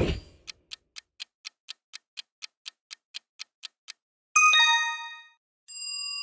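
Quiz countdown-timer sound effect: a short hit, then clock ticks about four a second for three and a half seconds. A bright bell ding follows, then a second, softer chime near the end, as if revealing the answer.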